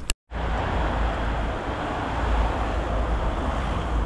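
Steady street traffic noise with a low rumble. A sharp click and a split-second dropout right at the start mark a cut in the recording.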